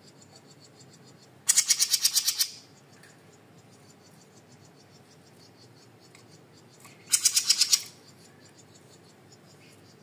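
A small caged songbird giving two loud, rapid trills of sharp, high notes, the first about a second long starting a second and a half in, the second shorter, near the seventh second.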